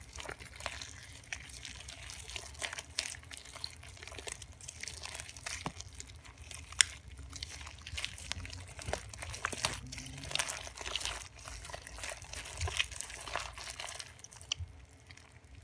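Hands kneading and squishing freshly activated slime packed with fishbowl beads: an irregular run of small wet crackles and crunches as the beads and sticky slime are pressed and pulled.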